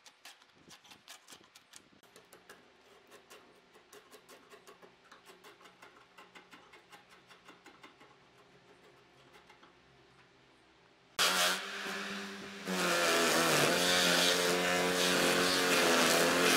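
A steel chisel scraping bark off the edge of a wooden slab in quick, light strokes, about three or four a second. About eleven seconds in, a rotary power tool starts up loud with a steady whine, spinning a brush wheel against the bark edge to strip it, and grows louder again a second and a half later as it bites.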